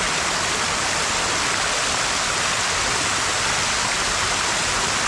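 Creek water pouring over a low rocky cascade: a steady, even rushing.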